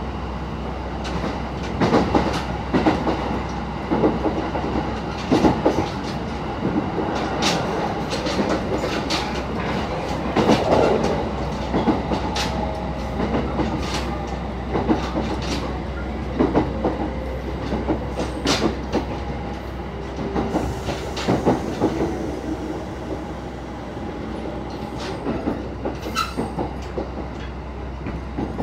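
Passenger train running, heard from inside the carriage: a steady rumble of the running gear, with the wheels clacking over rail joints again and again at uneven intervals.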